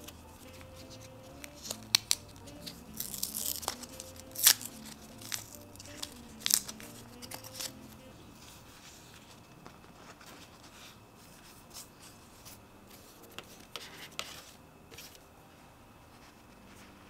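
An ESR wet-wipe sachet being torn open and crinkled in the fingers, with sharp snaps and rustling in the first half. Quieter rustles and taps follow. Faint soft background music plays under the first half.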